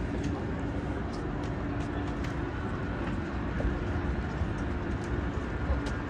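Steady low rumble of city background noise, with a faint steady hum running through it.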